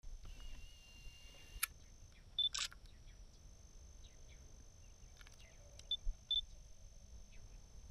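Digital camera beeping and clicking while taking a photo: a short high focus-confirm beep followed at once by a shutter click about two and a half seconds in, then a quick double beep near six seconds.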